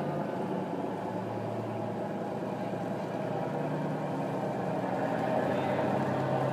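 Fishing vessel's diesel engine running as the boat manoeuvres at low speed against a strong tide. It is a steady low hum whose pitch shifts a few times, growing louder near the end as the boat draws closer.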